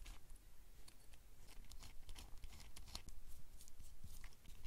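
Faint, irregular small clicks and scratches of a 0.05-inch hex driver turning out the tiny bolts of an Axial SCX24 motor plate.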